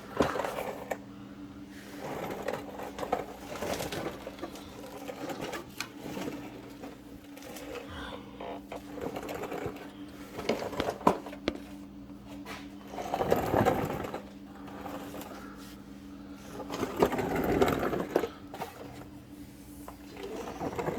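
Scattered clicks and rattles of shift-cable parts and plastic clips being handled, with two longer stretches of rustling and scraping partway through. A steady low hum runs underneath.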